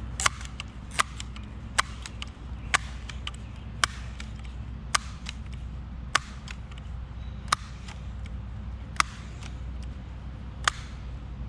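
Pumpmaster multi-pump air rifle being pumped up for a shot: ten sharp clicks, one per stroke, at first a little under a second apart and slowly spacing out. A steady low hum runs underneath.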